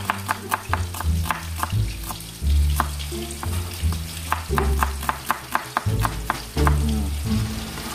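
Kitchen knife slicing a red onion on a wooden chopping board: quick sharp taps, about three a second with short pauses, over the steady sizzle of fish frying in oil.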